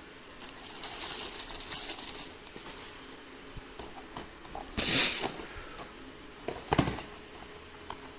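Handling noise of small plastic and packaged items: a soft rustle, then a louder short rustle or scrape about five seconds in and a few sharp clicks a couple of seconds later.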